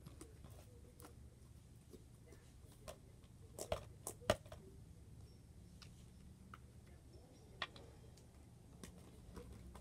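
Scattered light clicks and taps of plastic slime containers and lids being handled, loudest in a short cluster a little before the middle, over a faint steady low hum.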